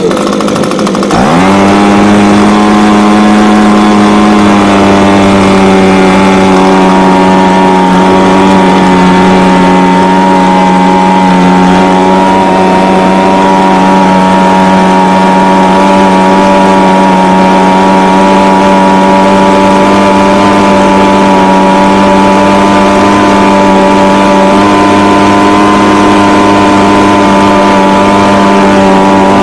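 Echo ES250 blower/shredder vac's small two-stroke engine catching on choke: it picks up speed through the first second or so, then runs loud and steady at an even pitch.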